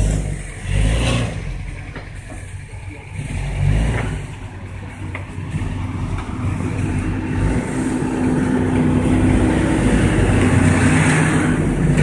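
Traffic driving through slush on a snowy road, with a truck engine growing steadily louder from about halfway as a delivery van approaches and passes close, tyres hissing in the wet snow. A few low thumps of wind on the microphone in the first four seconds.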